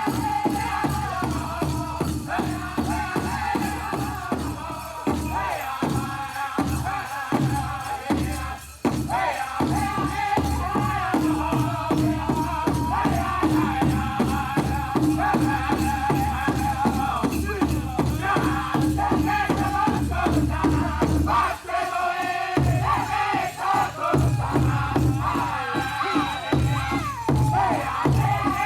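Powwow drum group singing a contest song: several men's voices singing together, with high-pitched leads, over a steady beat on a large shared drum. The drumming briefly drops out twice, about a third of the way in and again past the middle.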